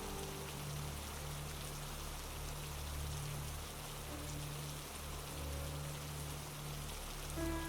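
Steady rain falling, an even hiss, with soft held music notes underneath that change every second or so.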